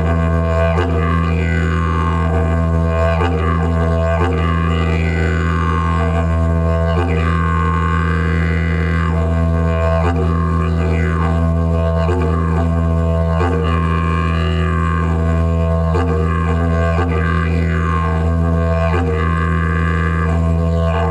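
Didgeridoo played solo: a low, unbroken drone with its overtones sweeping up and down in a repeating rhythmic pattern.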